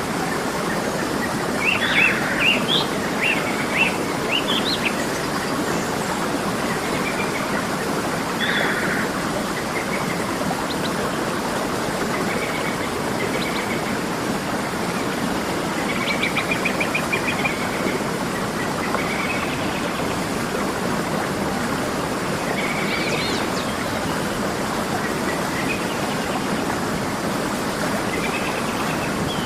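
Steady rush of a waterfall, with birds chirping over it in short bursts of calls: a cluster a couple of seconds in, more around the middle, and again near the end.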